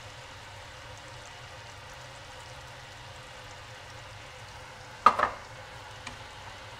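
Butter, brown sugar and honey sizzling softly in a saucepan over medium-high heat, with one sharp, briefly ringing clink about five seconds in.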